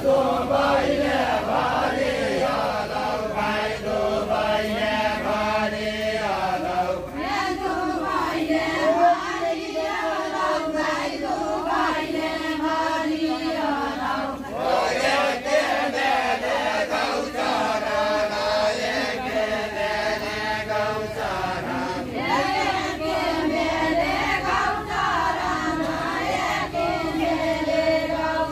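A group of dancers singing a Deuda folk song together, unaccompanied, in long drawn-out phrases of many voices.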